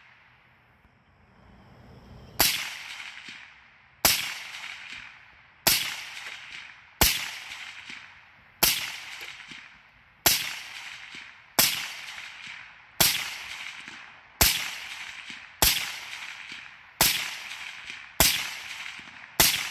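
Suppressed 300 Blackout AR rifle firing subsonic rounds in slow, steady semi-automatic fire: about thirteen sharp shots, one every second and a half or so, starting a couple of seconds in, each followed by a fading echo.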